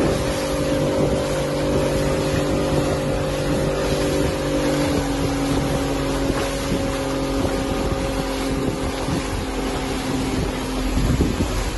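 Small boat's outboard motor running at steady speed, with wind on the microphone and water spraying along the hull. The engine note steps slightly lower about halfway through and fades near the end.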